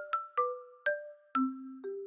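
Background music: a light melody of short struck notes, each starting sharply and ringing briefly, about three notes a second.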